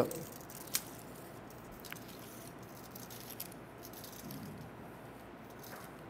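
Metal tape measure being pulled out, making a faint rattle with a sharp click about three-quarters of a second in and a few softer ticks, over quiet room tone.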